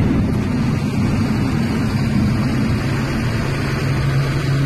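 Engine of a Terberg Zagro road-rail shunting vehicle running steadily under a dense low rumble. A steady low hum settles in about three and a half seconds in.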